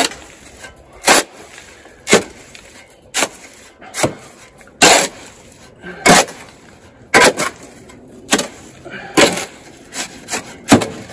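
Square-point shovel chopping and scraping through a dry mix of sand and plastic cement in a wheelbarrow, a sharp scrape about once a second. This is the dry-mixing stage before any water goes in.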